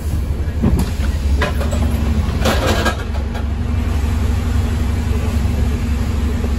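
Cabin sound of an ADL Enviro200 MMC single-deck bus on the move: a steady, heavy engine and road rumble with a few brief rattles. A steady hum comes in about halfway through.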